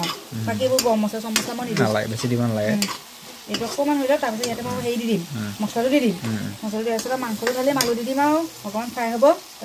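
A metal spatula stirring and scraping a vegetable-and-tomato mixture around a black iron wok (kadai) as it fries and sizzles. It clinks sharply against the pan again and again, and the scraping gives wavering pitched squeaks, with a brief pause about three seconds in.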